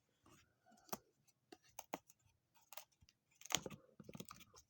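Cardboard game tokens being handled and set down on a table: a scattered series of light clicks and taps, busiest about three and a half seconds in.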